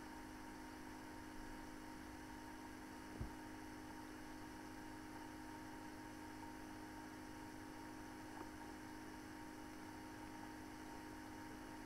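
Steady electrical hum with faint hiss, with one soft thump about three seconds in.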